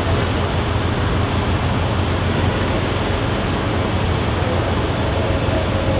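Steady low rumble of city traffic, even and unbroken.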